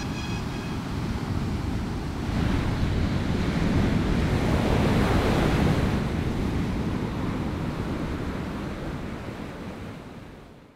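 Ocean surf: waves breaking and washing up the beach. The surf swells about two seconds in, then slowly fades out to silence at the end.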